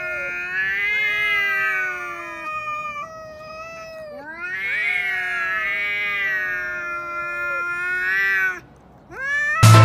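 Two domestic cats yowling at each other in a face-off: long, drawn-out wavering caterwauls, often overlapping at two pitches, easing about two and a half seconds in and swelling again about four seconds in. Such yowling is the threat display of two cats squaring up before a fight.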